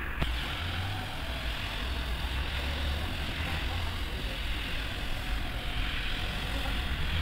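Single-disc rotary floor machine running as its brush scrubs a foam-covered rug: a steady low motor hum under a wet, hissing scrub, with one short click just after the start.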